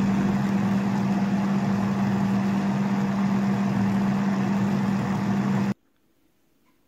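Countertop blender motor running steadily at high speed with a strong hum, blending a strawberry banana smoothie; it stops suddenly about five and a half seconds in.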